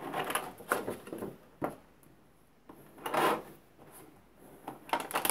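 Clear plastic packaging rustling and crinkling as a selfie stick and its cable, each in its bag, are handled and laid down on a cardboard box, with a few light knocks as they are set down.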